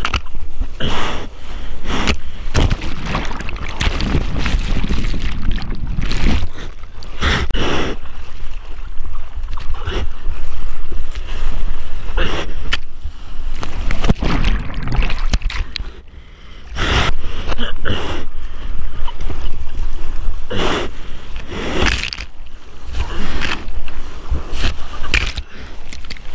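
Surf water rushing and splashing over a wrist-mounted action camera's microphone during a bodyboard ride: repeated loud splashes over a steady low rumble of water and wind buffeting the mic, briefly quieter about two-thirds of the way through.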